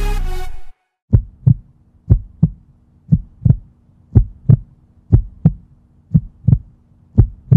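Music cuts off, then a heartbeat sound effect: paired low thumps about once a second over a faint steady hum.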